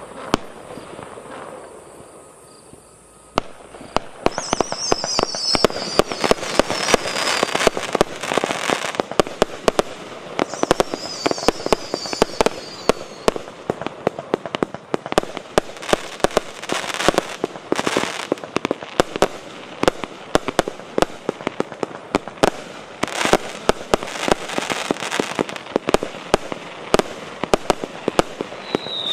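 Multi-shot firework cake (JF C25 battery) firing: about three seconds in, a rapid run of bangs and crackle starts and keeps going, with high falling whistles twice along the way.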